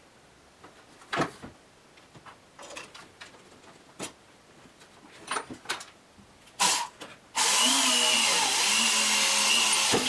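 A few light knocks and clicks, then about seven seconds in a handheld power drill starts and runs steadily for about three seconds, drilling a stop hole into the wooden angle guide of a bandsaw sled.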